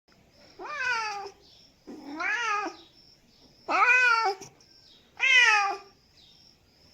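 Domestic cat meowing four times, about every second and a half. Each meow is under a second long and rises then falls in pitch.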